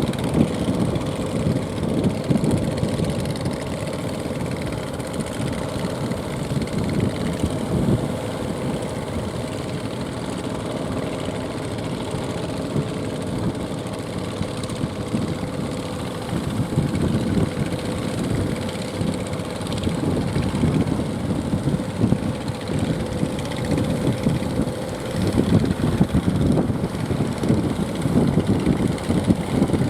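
Fishing boat engine running with a steady drone that fades near the end, with strong wind buffeting the microphone.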